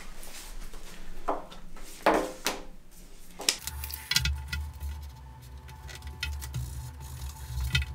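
Rustling and scraping of a foam deck pad and its paper backing being handled, with a few short sharp strokes, then from about three and a half seconds in, background music with a steady low beat and scattered clicks over it.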